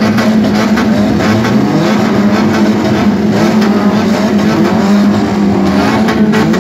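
A car engine running steadily, with a dense crackling over it.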